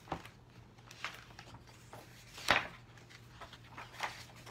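Handling noise at a desk: a few small knocks and rustles as a picture book and things around it are moved, the loudest about two and a half seconds in, over a faint steady electrical hum.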